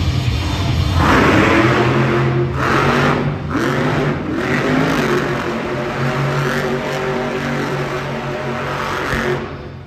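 Monster truck engine revving hard, its pitch rising and falling with throttle bursts. The sound cuts off suddenly near the end.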